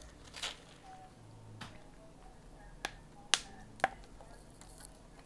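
Sharp plastic clicks from a citrus-juice squeeze bottle as it is opened and squeezed: five in all, spread out, the loudest two about half a second apart past the middle.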